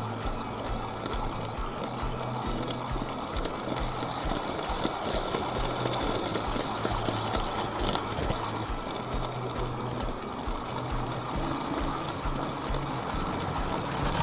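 LEGO train rolling along plastic track, heard from a camera riding on the train: a steady rumble with regular, evenly spaced clicks from the wheels passing over the track joints.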